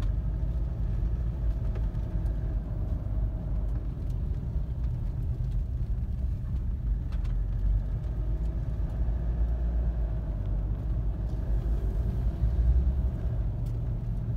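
Steady low rumble of a car being driven, heard from inside the cabin: engine and tyre noise on asphalt.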